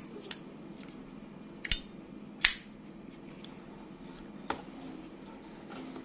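A chrome Zippo lighter being handled against its metal tin case: four short, sharp metallic clicks, the loudest about two and a half seconds in.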